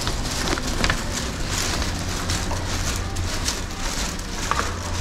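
Rustling, crackling walking noise from a camera carried along a carpeted corridor, with a low rumble and scattered irregular clicks.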